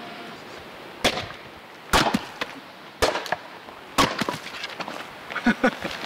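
Axe blows splitting firewood logs on a chopping stump: four sharp, cracking strikes about a second apart as the wood splits.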